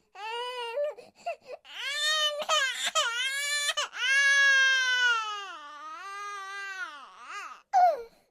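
A young animal crying in a run of high-pitched, wavering wails, with one long drawn-out cry in the middle and a short sharp cry near the end.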